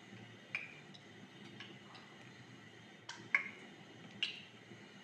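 Metal spoon clinking against a ceramic bowl while stirring thick chili paste: a handful of light, irregular clinks, the loudest about three seconds in.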